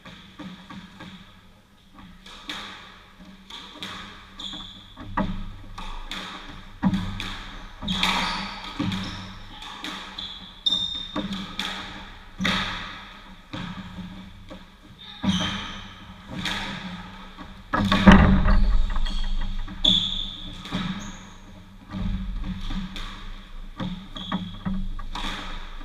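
Squash rally: the ball cracks off rackets and court walls every second or two, each hit echoing in the court. Short high squeaks come in between, and one heavier thud with a deep rumble lands about two-thirds of the way through.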